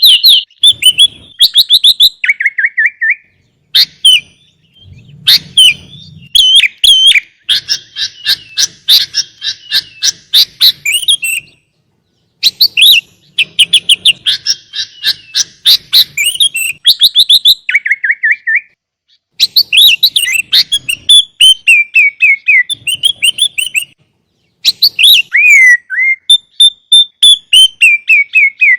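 Sooty-headed bulbul (kutilang) singing a loud, rapid run of chirping and trilling phrases, in bursts broken by short pauses.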